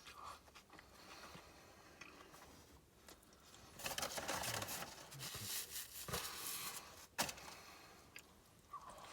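A person eating a burger: faint chewing at first, then louder, crunchier chewing from about four seconds in for some three seconds, ending with a single sharp click.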